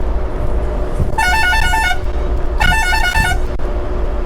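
Two short blasts of a warbling multi-tone musical horn, each under a second, the notes switching rapidly back and forth, over the steady drone of a truck's engine.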